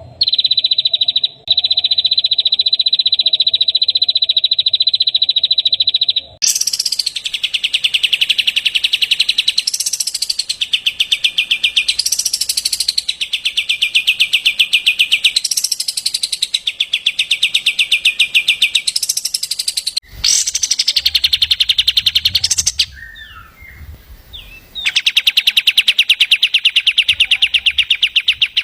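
Songbird song: a long, fast trill of rapidly repeated high notes, which grows louder about six seconds in, with a rising sweep every couple of seconds, and breaks off briefly twice near the end.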